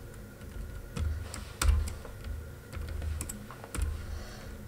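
Typing on a computer keyboard: irregular keystrokes in short runs, entering a line of code.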